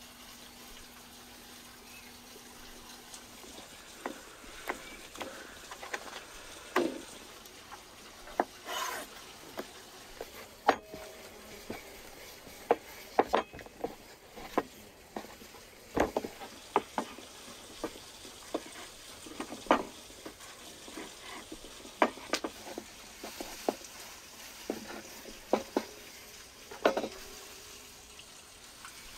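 A wooden rolling pin and hands working dough on a wooden board: irregular light knocks and clicks, a few every second, starting about four seconds in.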